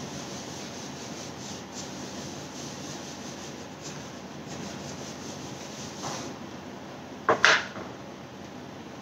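A whiteboard duster being rubbed across a whiteboard, erasing marker writing. About seven seconds in come two quick, sharp knocks close together, the loudest sound.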